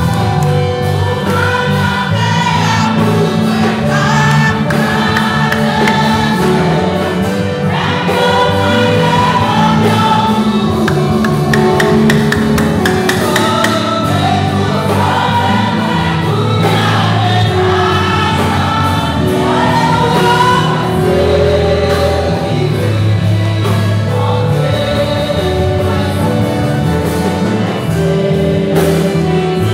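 A church choir and congregation singing a gospel song together, many voices in full, continuous song over steady low accompanying notes.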